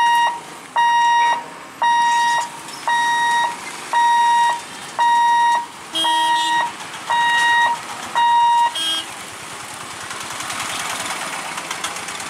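Level-crossing boom barrier's electronic warning beeper sounding as the barriers lift: a loud, even beep about once a second, nine times, then it stops. Engines of an auto-rickshaw and a small goods vehicle follow as road traffic starts across the tracks.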